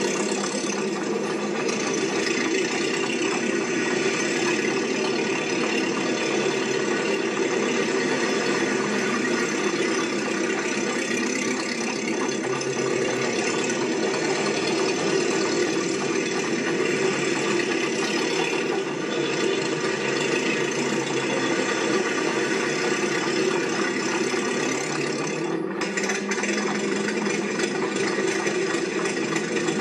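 A machine running steadily with a continuous mechanical rattle and hum, unchanging throughout.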